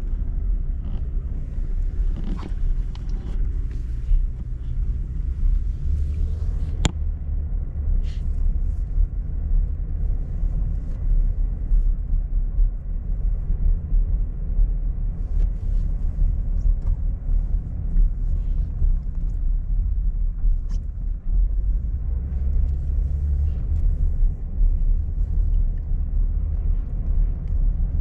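Steady low rumble of a car driving slowly, heard from inside the cabin, with one sharp click about seven seconds in.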